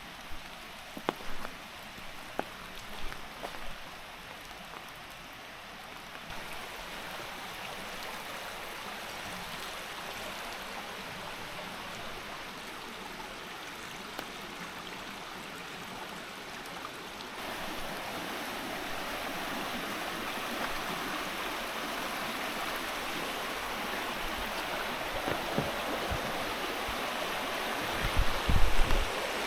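A stream's rushing water, a steady hiss that grows louder about two-thirds of the way through. A few light taps in the first few seconds, and a couple of low thumps near the end.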